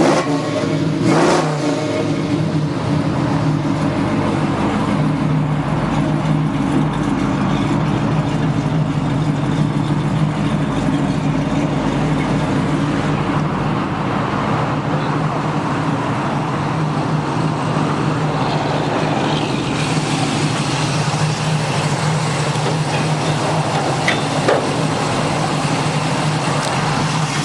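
1968 Camaro's 350 four-barrel V8 with headers and dual exhaust, idling steadily and evenly; it sounds really healthy.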